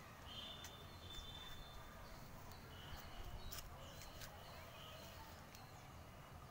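Quiet outdoor ambience with faint, short high chirping calls that come several times, over a low rumble, with a few faint clicks.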